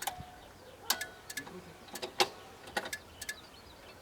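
A string of sharp metallic clicks and clinks, some in quick pairs, a few leaving a brief ring.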